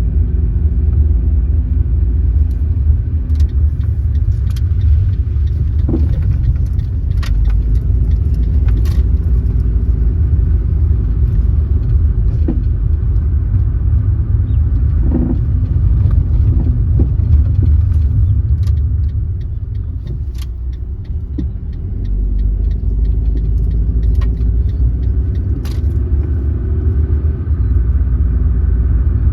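Car driving along a road: a steady low rumble of tyres and engine, with scattered small clicks and rattles, easing off briefly about twenty seconds in.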